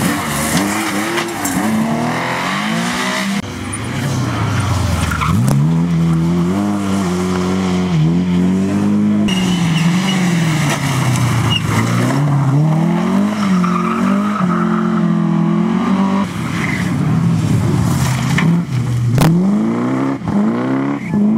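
Historic rally cars, among them a Porsche 911, an Opel Manta and a Mercedes SL, racing past one after another, each engine revving hard and dropping back on lifts and gear changes, about six rises and falls in all. Tyres scrub on the corner surface.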